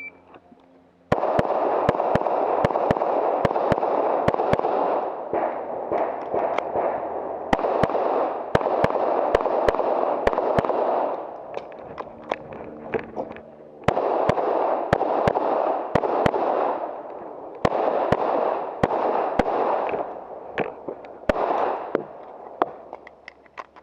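A competitor's handgun firing a USPSA course of fire: dozens of sharp shots in quick strings with short pauses between them. The shooting starts about a second in, just after the shot timer's start beep. A steady rushing noise runs under the shots in long stretches.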